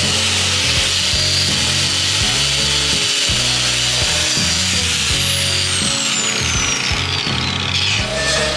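Angle grinder grinding steel: a loud, steady rushing hiss. Over the last few seconds a high whine slides steadily down, and the grinding stops just before the end.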